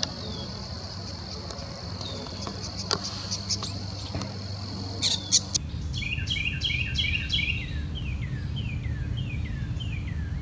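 A steady, high insect drone with a few scattered clicks. About five and a half seconds in it gives way to a songbird singing a run of quick, falling notes, roughly two a second, over a low background rumble.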